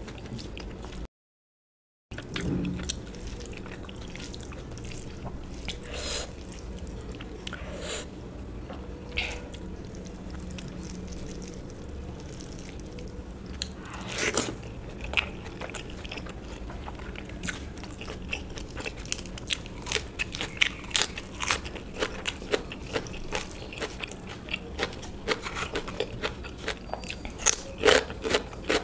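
Close-up eating sounds: chewing with many short crunches, coming thicker and faster in the second half. About a second in, the sound drops out completely for a second.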